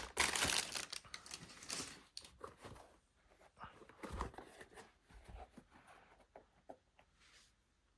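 Cardboard shoe box and its paper being handled: rustling, denser in the first two seconds, then scattered light knocks and rustles that die away.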